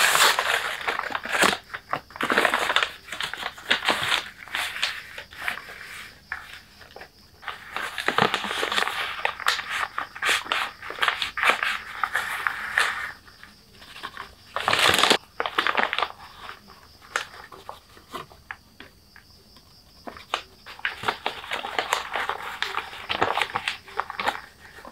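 Brown paper wrapping of nasi lemak packets crinkling and rustling as it is unfolded and shaken out, in irregular bursts with short pauses and a sharp crackle about fifteen seconds in.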